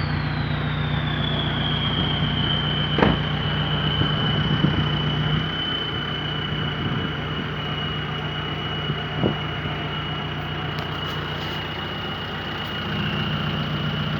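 Turbocharged engine idling with a loud, high turbo whistle. The whistle falls in pitch over the first couple of seconds as the turbo spins down from a rev, then holds a steady tone. The engine note rises slightly near the end.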